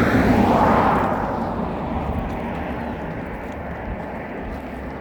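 A road vehicle driving past, loudest about half a second in and then fading away steadily.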